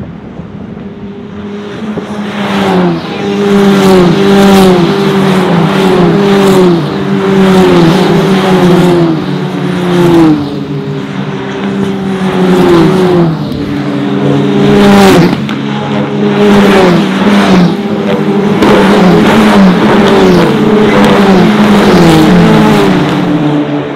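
Formula Regional open-wheel race cars, Tatuus FT-60s with Toyota 2.0-litre turbocharged four-cylinder engines, racing past at full throttle. Their engine notes climb and drop again and again as they shift gears. The sound builds about two seconds in, with a sharp falling swoop in the middle, and fades near the end.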